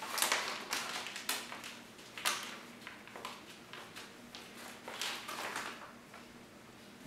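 Rustling and crinkling of a plastic flour bag as it is handled and flour is poured from it into a stainless steel mixing bowl, in a series of short crinkles, loudest near the start and about two seconds in; stirring with a spoon in the bowl follows near the end.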